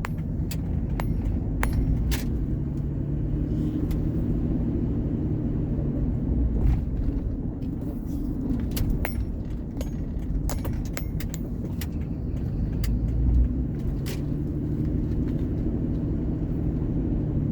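Vehicle driving, heard from inside the cab: a steady low engine and road rumble, with scattered light clicks and rattles.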